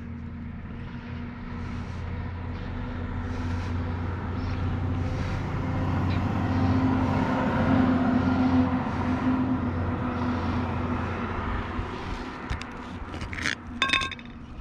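A passing motor vehicle: a steady engine hum that swells to its loudest about eight seconds in, then fades. Near the end come a few sharp metallic clinks from the sealant can and its lid being handled.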